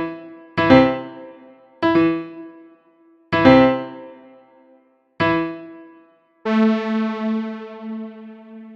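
Piano-sounding keyboard playing slow chords, struck one at a time and each left to ring and fade. About six and a half seconds in, a long held tone with a slight pulsing waver begins and fades away.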